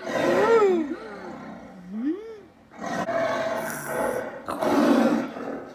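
Tiger roaring: two short calls that rise and fall in pitch, then a longer, rougher roar from about three seconds in.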